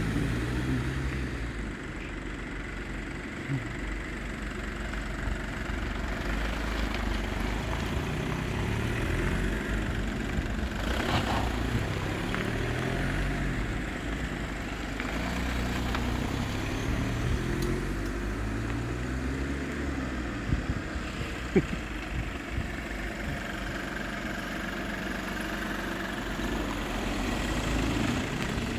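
Engines of a convoy of small classic Austin A30 and A35 cars driving off, the engine notes rising and falling again and again as the cars pull away and change gear.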